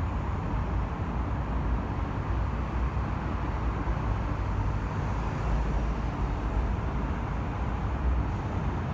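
Expressway traffic: a steady rumble of many cars and buses passing, with no single vehicle standing out.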